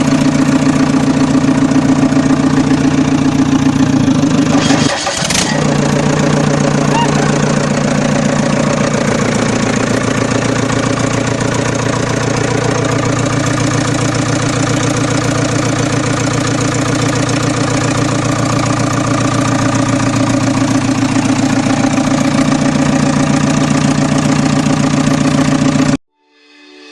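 JCB 3DX backhoe loader's diesel engine running steadily. About five seconds in there is a short sharp sound and a brief dip, after which the engine runs on at a slightly different pitch. The engine sound cuts off abruptly near the end.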